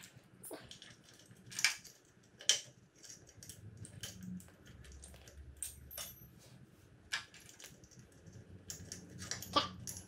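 Small metal parts, a spring and washer, clicking and tapping irregularly as they are fitted onto a throttle-linkage shaft of an outboard motor, with a few sharper clicks among lighter handling sounds.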